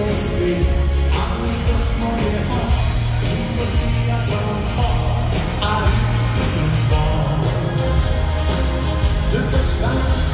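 Live danseband playing a song with a singer, over a steady bass line and drums with cymbals.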